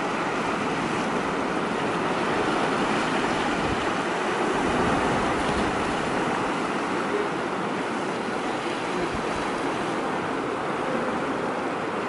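Sea surf washing steadily against the shore, an even rush of water.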